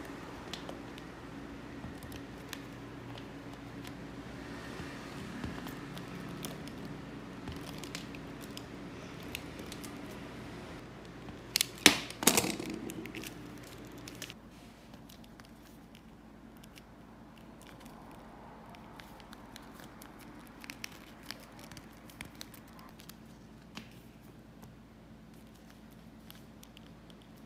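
Utility knife scraping and cutting into the hard plastic of an action figure's leg, with scattered small clicks from handling the figure. A couple of sharp knocks come a little before halfway, and a steady background hum cuts off soon after.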